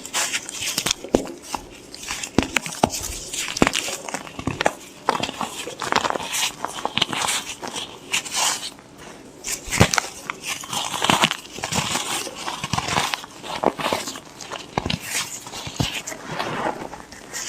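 White gym chalk being crushed and crumbled: a dense, continuous run of crisp crackles and small snaps.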